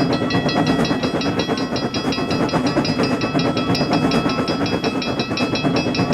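A railroad-crossing warning bell ringing in a fast, even rhythm over the steady rumble of a train running along the track.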